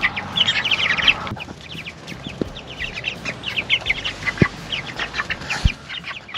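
A flock of chickens calling, with many short, high peeps and clucks overlapping, several a second.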